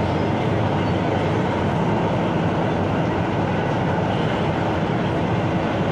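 Steady running noise inside a moving MTR South Island Line S-train passenger car: an even rumble from the wheels and running gear, with a faint steady tone over it.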